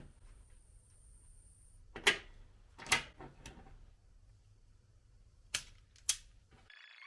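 About five sharp knocks or clicks over a low steady hum, loudest about two and three seconds in. Near the end the hum cuts off and background music begins.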